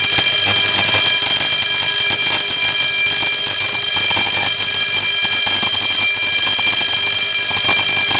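Electric fire alarm bell ringing continuously and loudly, its striker beating rapidly on the gong, set off by pressing the alarm switch during a routine monthly test of the building's warning system. It starts abruptly and cuts off near the end, the gong ringing on as it fades.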